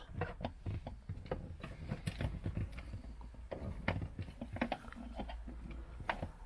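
Irregular small clicks and knocks of hands working behind a stripped-out Peugeot 407 dashboard, plastic trim and wiring connectors tapping and rattling.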